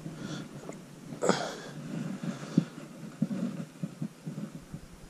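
Camera handling noise: soft, irregular low knocks and rubbing as the angler's arm moves against the camera, with one short breathy whoosh about a second in.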